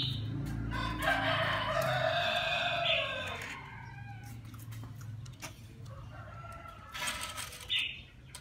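A rooster crows once: a single drawn-out crow of about two and a half seconds that drops in pitch at the end. A short high chirp follows near the end, over a low steady hum.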